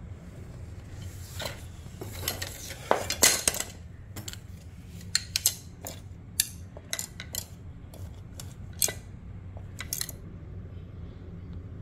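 Rustling of a fabric rod case for a couple of seconds, then a series of sharp clicks and light clinks as the sections of a three-piece graphite travel rod and its reel are handled and knock together.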